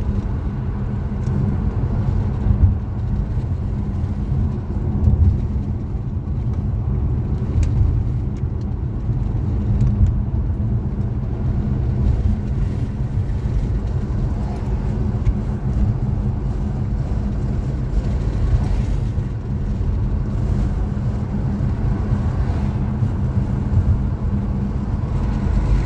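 Steady road and engine noise of a car driving, heard from inside the cabin: a continuous low rumble with a steady hum.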